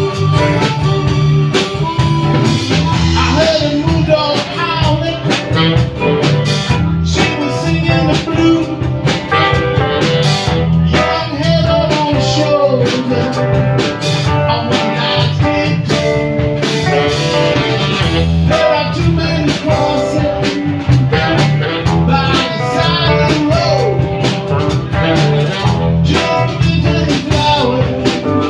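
Live blues band playing an original song: guitars, bass and drums in a steady groove, with a wavering melody line over the top.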